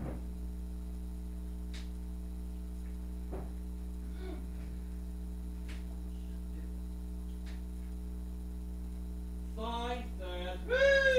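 Steady electrical mains hum with a few faint ticks. Near the end come two short high pitched cries that rise and fall.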